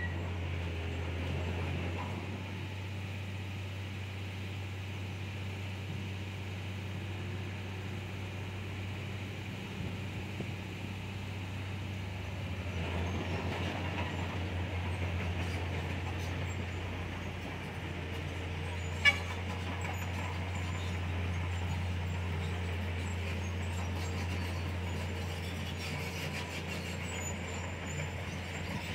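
Komatsu D31PX crawler bulldozer's diesel engine running with a steady low drone, swelling slightly about halfway through. A single sharp clank comes about two-thirds of the way in.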